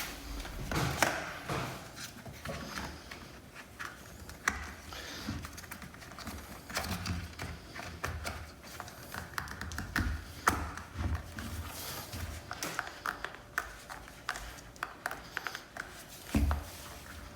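Irregular small clicks and taps of a hand tool on screws and plastic trim as a bracket on a steering wheel is unscrewed.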